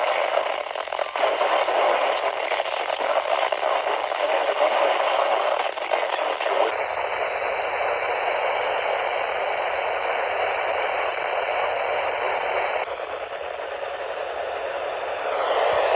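Steady static hiss from a radio receiver with no voice on the channel. The hiss changes abruptly twice, about seven and thirteen seconds in.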